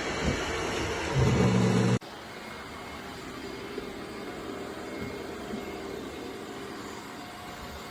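Robot vacuum running: steady motor and brush noise. A loud low hum builds over the first two seconds, then the level drops suddenly to quieter, even running.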